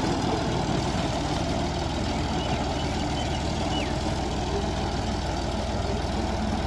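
Ford 3000 tractor's three-cylinder engine running steadily at low revs, an even rapid chugging, as the tractor creeps forward.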